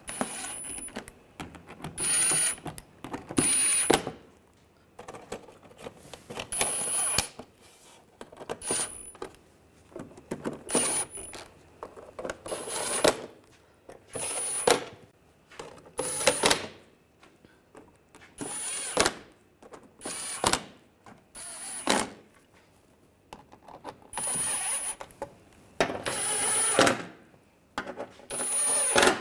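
Cordless power driver running in short bursts, more than a dozen in a row with brief pauses, each with a thin high motor whine, as it tightens the bolts of the car's underbody panel one after another.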